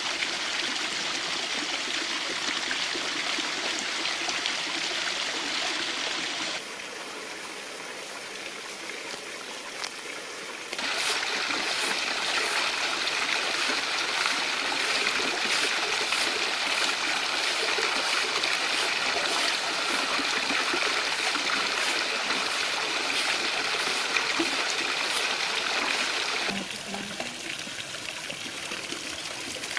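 Steady rushing of running water, its level dropping and rising a few times.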